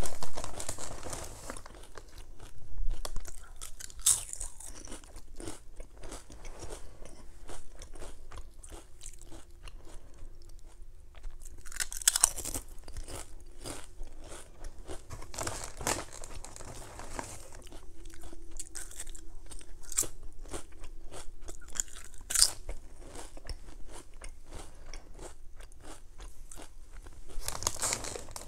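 Close-miked chewing of crunchy Lay's salt and vinegar potato chips: a steady run of crunches with louder bites every few seconds. The chip bag rustles as a hand reaches in at the start and again near the end.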